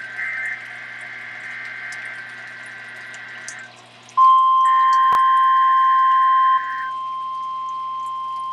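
NOAA Weather Radio Required Weekly Test signalling from two stations received together: a harsh, buzzy digital SAME header burst, a brief pause, then the steady 1050 Hz alert tone comes in loud about four seconds in, with a second buzzy data burst over it. Near the end the loud tone drops and a quieter 1050 Hz tone from the other station carries on.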